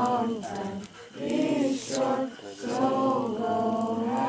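Voices singing a song in phrases about a second long with short breaks between them.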